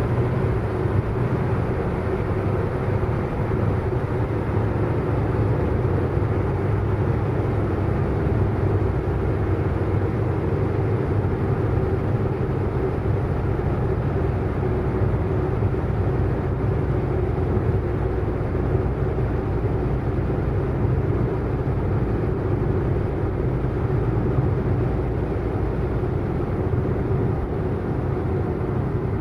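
Car driving at a steady speed: a constant engine drone over road rumble, with no revving or gear changes.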